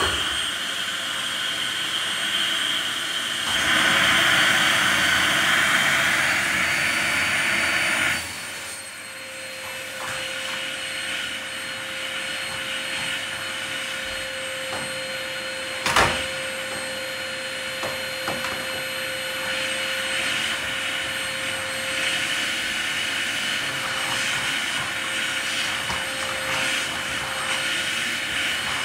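Canister vacuum cleaner running steadily as its floor nozzle is worked over a tiled floor. It is louder and brighter for the first several seconds, drops to a lower, steadier hum with a faint whine about eight seconds in, and there is one sharp knock about halfway through.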